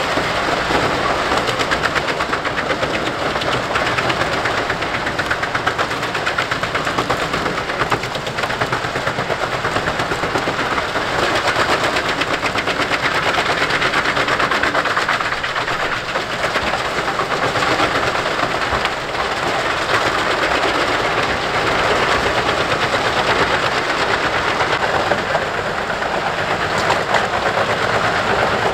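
Jenz HEM 593 Cobra truck-mounted wood chipper chipping branches and conifer brushwood, its engine running under load. The cutting makes a steady, dense rattle of rapid cracks with no let-up.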